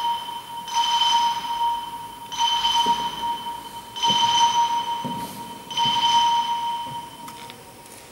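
Telephone bell ringing: five short rings, each about a second long with half-second gaps, over a steady bell tone. The rings stop and the tone fades away near the end.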